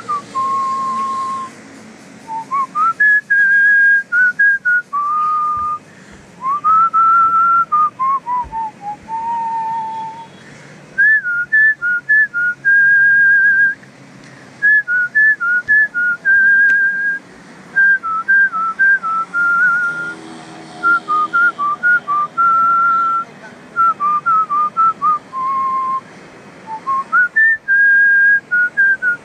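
A solo whistled tune: one clear whistled melody in short phrases of held notes, upward slides and quick trilled runs, with brief pauses between phrases.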